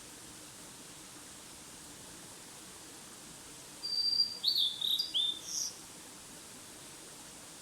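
A songbird sings one short phrase about four seconds in: a held high whistle followed by a few quick down-slurred notes.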